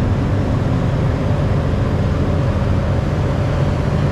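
Steady low rumble of outdoor airport-apron background noise, even in level, with a faint steady hum above it.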